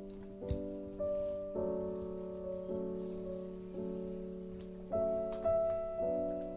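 Gentle background piano music, a new note or chord struck about every half second to a second, each fading away. A single light knock sounds about half a second in.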